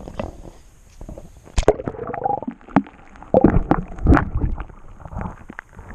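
Water sloshing and splashing in a pool, with a loud splash about a second and a half in and a burst of heavier splashing around three and a half to four seconds in.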